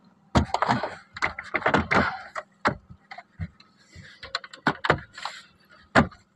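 Hard plastic knocks, clicks and rattles as an aftermarket Android head unit and its trim panel are pushed and tapped into a Toyota Agya's dashboard. A dense cluster of knocks comes in the first two seconds, then scattered single knocks, with a sharp one near the end.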